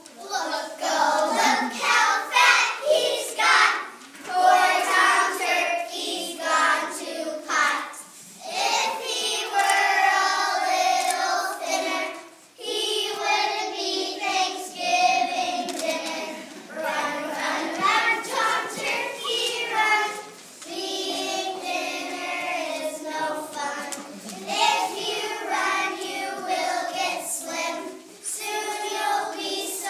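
A group of young children singing together, in sung phrases a few seconds long with short breaks between them.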